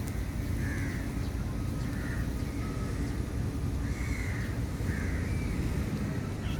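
Crow cawing repeatedly, short hoarse caws about one a second, over a steady low background rumble.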